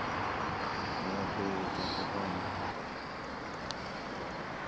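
Steady hum of distant city traffic, with a couple of faint brief high sounds about halfway through.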